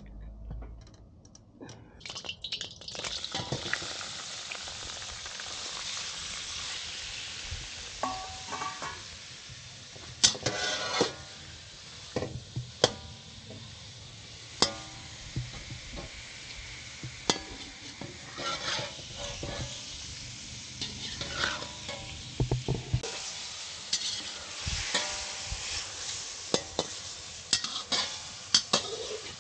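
Food sizzling as it fries in a pan over a fire, with a utensil stirring and knocking against the pan in frequent sharp clicks. The sizzle starts about two seconds in.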